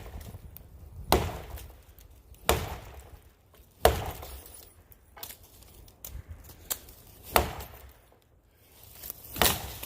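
About seven sharp wooden knocks at uneven intervals, the loudest about four seconds in: a wooden baton being struck hard as it is shortened.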